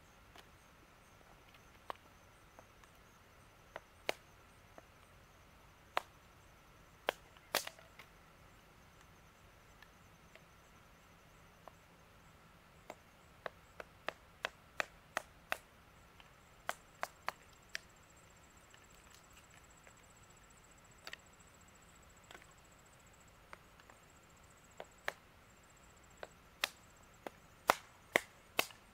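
Small kindling being chopped on the ground with a hand tool: sharp wooden knocks, scattered at first, then in quick runs of about three a second in the middle and near the end, the loudest at the end.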